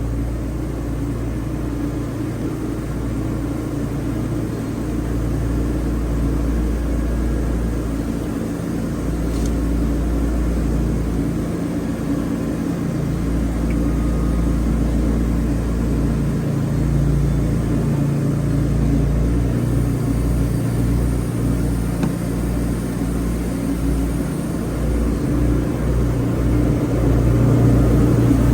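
Wood-Mizer LT40 sawmill's engine running with a steady drone and low rumble. Its hum shifts slightly past the middle and grows louder near the end.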